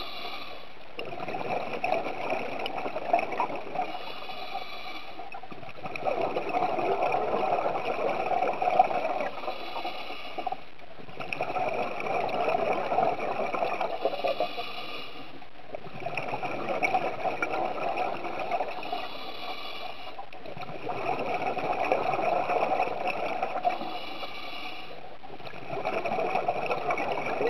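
Scuba diver breathing through a regulator underwater, with exhaled bubbles. The noise swells and fades in a regular cycle about every five seconds.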